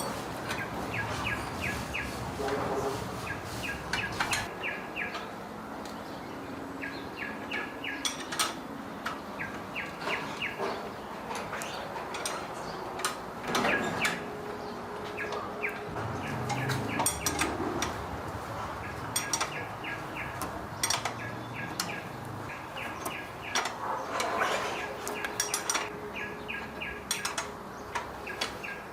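Small birds chirping in repeated quick runs of short high notes, with scattered sharp clicks and knocks in between.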